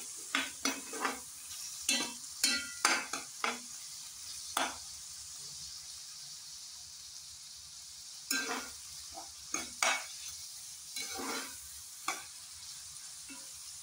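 Minced mutton and chopped onions sizzling in hot oil as they are lightly fried, with a metal spatula scraping and clacking against the pot in irregular bursts of stirring. For a few seconds midway there is only the sizzle.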